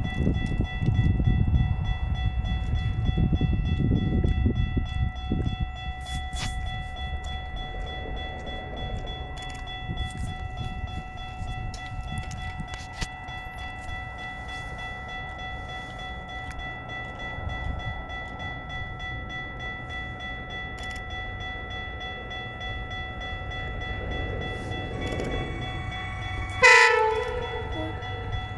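GO Transit train rumbling by at the start, with steady ringing tones throughout. About two seconds before the end, cab car 325's frozen horn gives one short, sudden blast that falls in pitch and cuts off: the horn is iced up and barely sounds.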